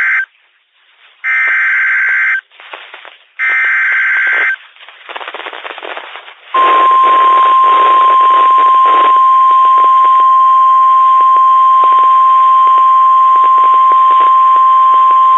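NOAA Weather Radio Emergency Alert System signal. First come the end of one and then two more of the three buzzing SAME digital header bursts, each about a second long, with static between them. From about six and a half seconds in comes the steady 1050 Hz warning alarm tone, which holds to the end. The tone signals that a warning message is about to be read.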